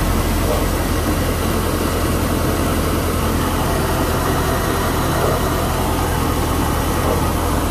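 Volvo Penta 7.4L Gi V8 marine engine idling steadily, freshly filled with synthetic motor oil: a quiet, even idle with a constant low hum.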